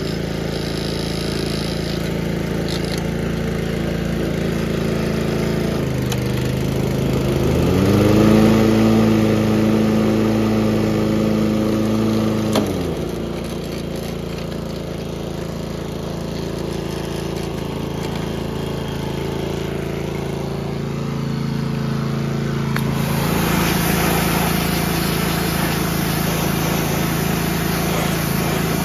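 A 1988 Toro 20622 mower's Suzuki engine runs steadily with the blade engaged, warming up before an oil change. A higher, steady hum rises in about seven seconds in and drops away about five seconds later. From about 23 seconds in, a pressure washer sprays water at the deck with a hiss.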